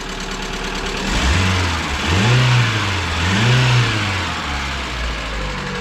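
Lada Priora (VAZ 2170) four-cylinder petrol engine running, then revved up and let fall back three times in quick succession. The engine has a knock that the owner puts down to worn pistons rocking in their bores, not to the hydraulic lifters.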